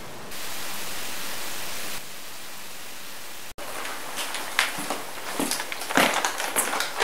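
Steady hiss for about three and a half seconds that cuts out abruptly, followed by a run of irregular sharp clicks and knocks.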